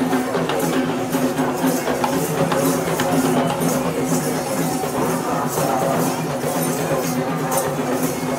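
Live street-procession music: drums and jingling, clashing metal percussion in a steady beat, with a steady held tone underneath.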